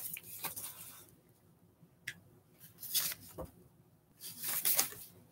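Paper sewing-pattern envelope rustling as it is handled and turned over: a few short rustles, the longest near the end.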